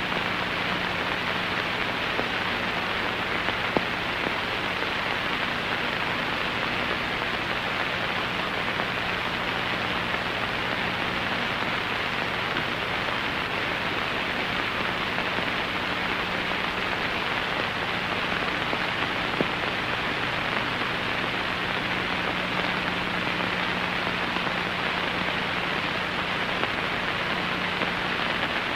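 Steady hiss like falling rain, with a faint low hum underneath that fades and returns.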